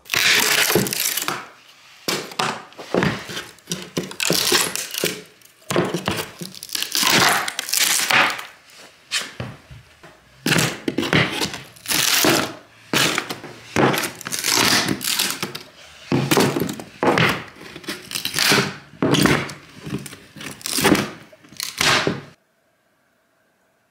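Claw hammer prying wooden carpet tack strip up off a plywood subfloor: repeated cracking, splintering and tearing scrapes about once a second as the nailed strip breaks loose. It stops about a second and a half before the end.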